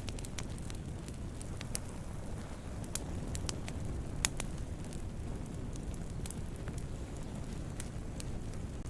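Wood fire crackling: a steady low rumble of burning with frequent sharp pops and snaps of burning wood scattered irregularly, one louder pop a little before the middle.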